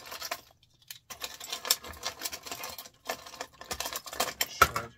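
Small pieces of electronic scrap (circuit board fragments, switches and small metal and plastic parts) clicking and rattling as hands rake and pick through a pile on a sheet-metal bench top. A short clatter at the start, then almost continuous rattling from about a second in.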